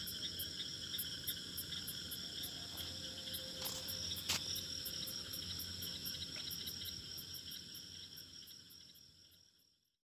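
A steady, high-pitched chirping chorus over a low hum, with one sharp click about four seconds in, fading away over the last few seconds.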